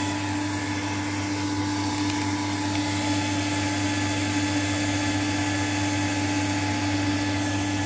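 Cooling fan of a 1 kW VHF linear amplifier running steadily after power-on, a constant whirring rush over a low hum with a steady tone.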